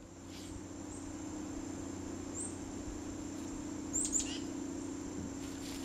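A few short, high chirps, once about two and a half seconds in and twice about four seconds in, over a steady faint high insect drone.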